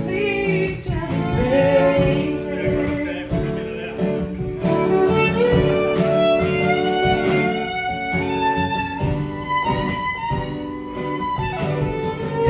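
Instrumental break in an original song in D: a fiddle playing the melody over a strummed acoustic guitar and a drum kit, played live.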